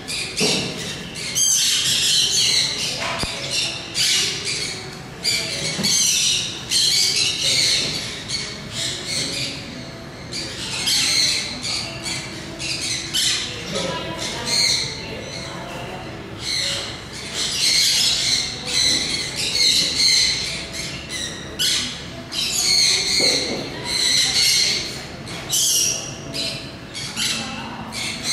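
Birds calling over and over, a dense run of harsh squawks and chirps that keeps going throughout, with a faint murmur of voices beneath.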